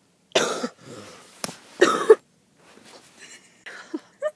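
A woman coughing with the flu: two loud, harsh coughs in the first two seconds, followed by fainter throat sounds.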